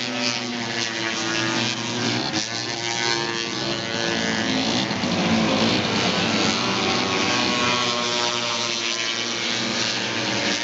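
Several single-cylinder two-stroke snowmobile engines racing together, a dense overlapping drone whose pitches rise and fall as the sleds rev.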